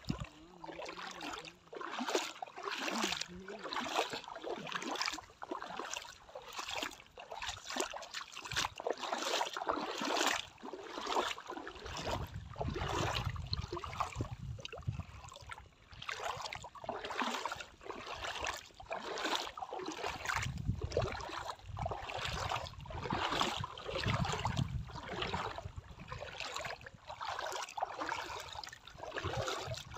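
Splashing of someone wading through shallow seawater on a reef at night, with a splash roughly every second, stroke after stroke. At times a low rumble runs under the splashes.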